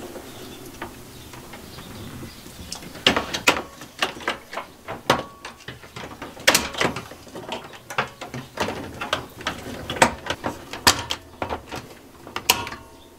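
Circuit breakers in a breaker panel being pulled off and snapped back into place: a string of irregular plastic clicks and clacks, starting about three seconds in.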